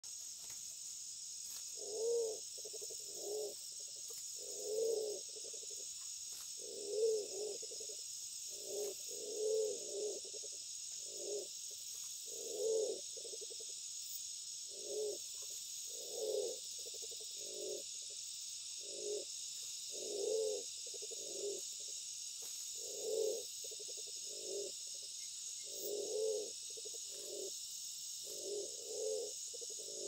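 Fruit dove (walik) cooing over and over: short low notes in ones, twos and threes every two to three seconds, a male's call to a female in the breeding season.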